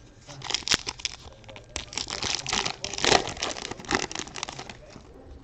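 A foil trading-card pack wrapper crinkling and tearing as it is ripped open by hand, a run of crackly rustles and snaps that dies away near the end.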